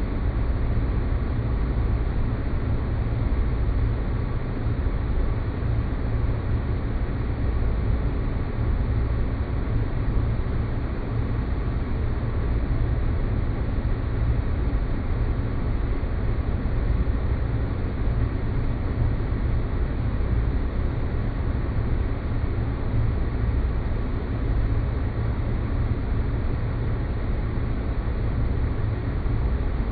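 Space-planet ambience sound effect: a steady, unbroken low rumbling noise drone, with most of its weight in the deep bass and a fainter hiss above.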